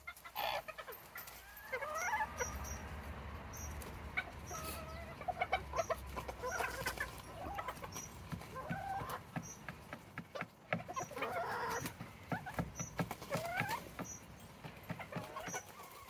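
Serama bantam chickens clucking on and off, in short calls that rise and fall in pitch and come in clusters.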